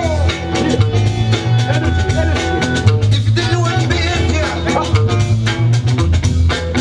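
Loud music for the breaking battle, with a heavy bass line and a steady drum beat.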